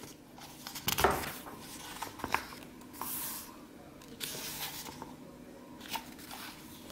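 Paper pages of a hardcover picture book being turned by hand: several short rustling swishes with a few light taps.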